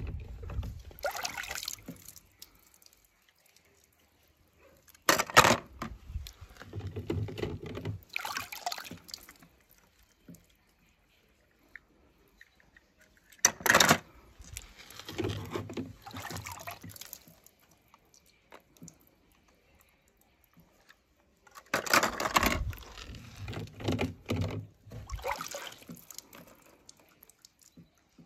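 Water splashing and sloshing in a plastic tub as a hand reaches in among die-cast toy cars and lifts them out, dripping. It comes in about four bouts a few seconds apart, each starting with a sharp knock.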